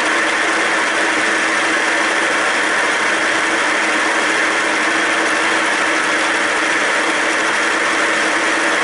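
Deckel FP1 milling machine running, its end mill taking a steady side cut along a steel plate under flood coolant: a continuous cutting hiss over a steady motor hum.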